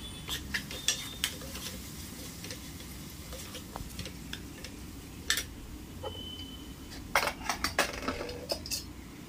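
A metal ladle stirring onions, green chillies and turmeric in a pressure cooker pot, scraping and clinking against the pot's sides at irregular moments. The knocks come thicker and sharper toward the end.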